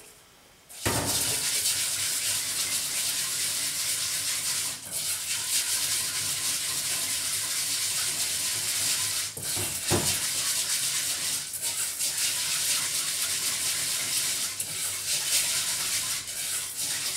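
Rice being washed by hand in water in a stainless steel bowl: a steady swishing and scrubbing of the grains, with a single knock against the bowl about ten seconds in.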